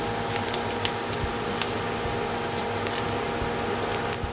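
Chicken skin frying in hot coconut oil: a steady sizzle with sharp pops and crackles scattered through it, the skin still popping as it crisps. A steady hum runs underneath.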